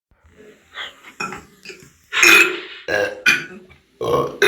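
A run of burps: a few short, quieter ones, then louder, longer belches from about two seconds in.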